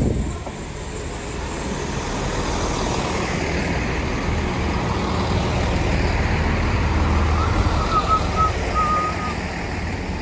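GWR Class 166 diesel multiple unit coming into the station and passing close by, its underfloor diesel engines rumbling under the running noise of wheels on rail. The rumble swells as the cab and front coaches go past, and a few short high squeals come from the train about three quarters of the way through.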